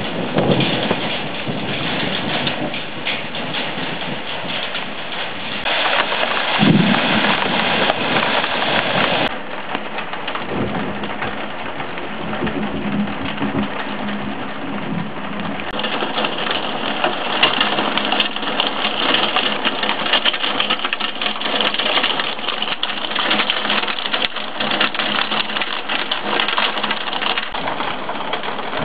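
Heavy thunderstorm downpour: rain pouring steadily, with low rumbles of thunder near the start and again about six seconds in.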